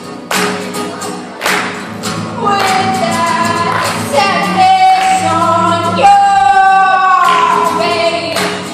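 A woman sings live to a strummed acoustic guitar. The guitar strums carry the first couple of seconds, then she comes in with long, high held notes over them.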